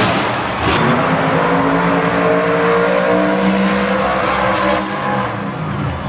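Monster truck's supercharged V8 revving and running hard, its pitch holding fairly steady. A short loud burst comes in the first second.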